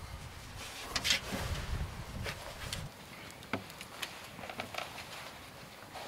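Rustling and scattered light clicks and knocks of gear being handled by hand, with a low rumble through the first half.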